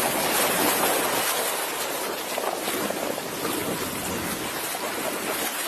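Water rushing and splashing steadily along the hull of a boat under way, a little louder in the first second or so.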